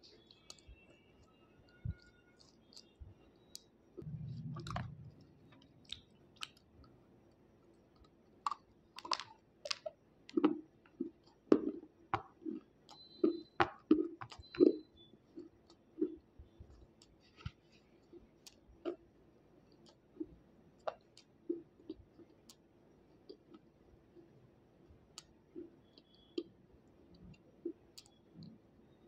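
Water-soaked slate being bitten and chewed close to the microphone: scattered sharp crunching clicks, thickest between about nine and fifteen seconds in, with a brief low rumble about four seconds in.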